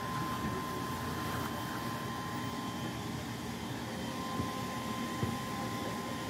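Steady background hum and hiss with a faint constant high whine, heard from behind window glass.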